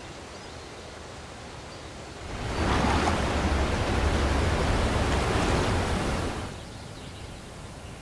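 Falling water of Yosemite Falls rushing in a steady, even roar, swelling much louder a little over two seconds in and easing back about two seconds before the end.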